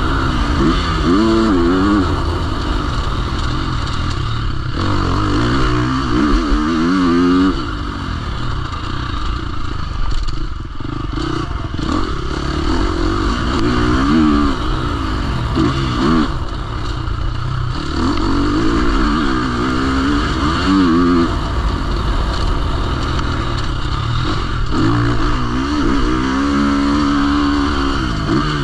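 Motocross dirt bike engine revving hard and dropping back over and over, its pitch climbing and falling every few seconds as the rider opens and closes the throttle around the track, briefly easing off about ten seconds in.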